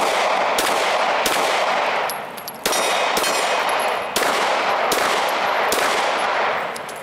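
Eight shots from a Glock 9mm pistol, fired in groups of three, two and three with short pauses between the groups, each followed by a long echoing tail. The two middle shots are on a steel plate, and a faint ring of the struck steel follows them.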